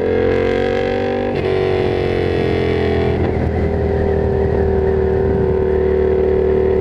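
Yamaha FZ-07's parallel-twin engine running on the move: its note rises for about a second, drops off over the next two seconds, then settles to a steady pitch.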